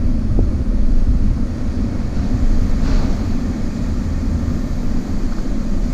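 An engine running steadily with a low rumble, with wind noise on the microphone.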